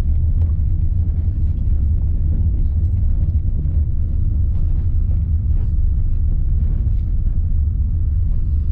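Car driving along a road, a steady low rumble of road and engine noise heard from inside the cabin.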